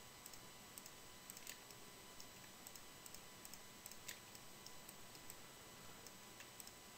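Near silence with faint, scattered clicks of a computer mouse and keyboard, two slightly louder ones about a second and a half and four seconds in.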